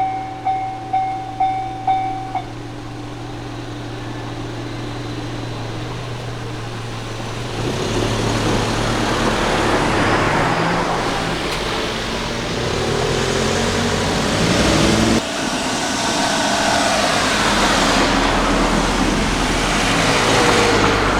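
Japanese level-crossing warning bell ringing about twice a second, stopping a couple of seconds in. Road vehicles then drive over the crossing: a swelling and fading rush of engines and tyres.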